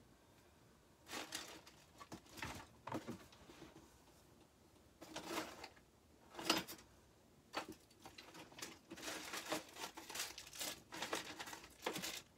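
Someone rummaging through boxes of craft supplies: irregular rustling, crinkling and small knocks, with the loudest knock about six and a half seconds in and the handling getting busier in the last few seconds.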